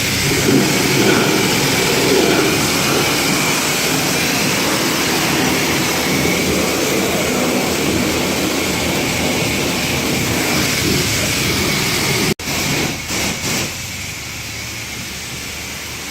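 High-pressure car-wash wand spraying water into an engine bay to blast the oil off, a loud steady hiss. It cuts off abruptly about twelve seconds in and comes back as a quieter spray.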